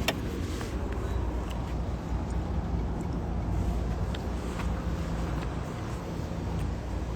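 Steady low engine-like rumble throughout, with a few faint clicks.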